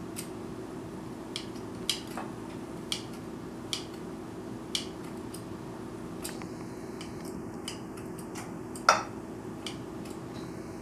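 Kitchen scissors snipping cooked chicken breast into pieces: short, sharp snips at irregular intervals of about one a second, with one louder click near the end. A steady low hum runs underneath.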